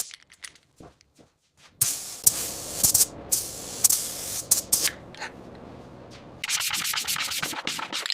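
Hand sanding of a car body panel with a sanding block, in rapid back-and-forth strokes. It starts after a near-silent pause of about two seconds, eases off in the middle and gets louder and denser near the end.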